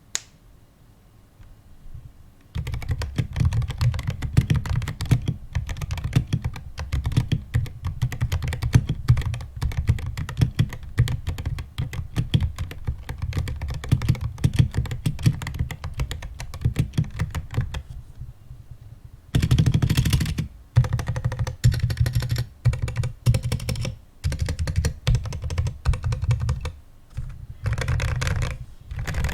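Typing on a DROP ALT mechanical keyboard with DROP Holy Panda X tactile switches and MT3 keycaps: a fast, continuous patter of keystrokes starting about two and a half seconds in. After a short pause about two-thirds of the way through, the typing goes on in short bursts with brief gaps.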